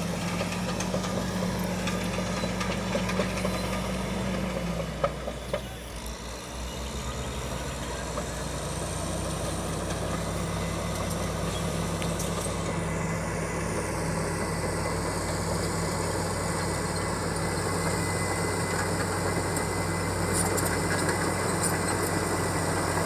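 Caterpillar D8R bulldozer's diesel engine running steadily. About four to five seconds in its pitch drops and the sound dips briefly with a few knocks, then it settles into a steady run again.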